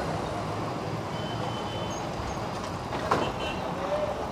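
Steady outdoor road-traffic noise from passing vehicles, with a single knock about three seconds in.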